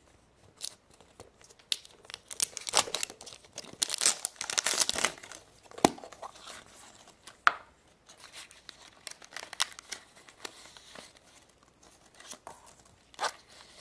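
Crinkling and tearing of plastic packaging as a surprise egg is unwrapped and opened, with a couple of sharp clicks as the hard plastic capsule is pried apart at its seam.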